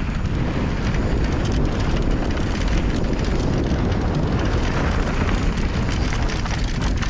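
Mountain bike riding fast down a dirt singletrack: tyres rolling over the trail with a steady rumble of wind on the microphone and light rattling from the bike.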